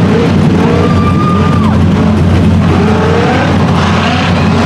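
Rock bouncer buggy's engine revving up and down under hard load as it climbs a steep, muddy hill.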